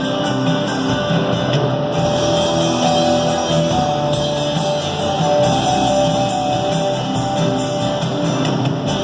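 A rock band playing at a sound check: guitar and drum kit through the PA.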